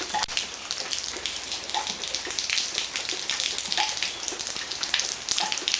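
Steady rainfall, with many individual drops ticking on a hard surface close by.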